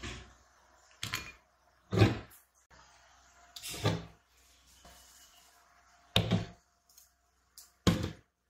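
Objects being handled and set down during kitchen preparation: about six separate dull knocks and thuds, a second or two apart.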